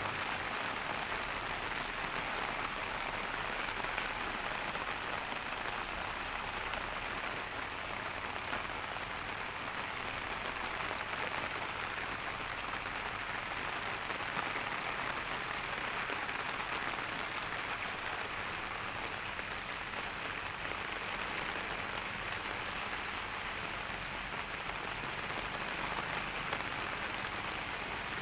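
Steady rain falling and pattering on surfaces, an even hiss with fine drop ticks and no letup.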